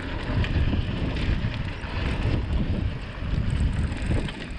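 Wind buffeting the microphone over the rumble and rattle of a mountain bike rolling along a dirt trail, with a few light clicks.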